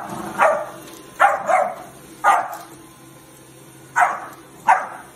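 A puppy barking at a stick vacuum's floor head in short, sharp barks. About five come in quick succession over the first two and a half seconds, then a pause, then two more near the end.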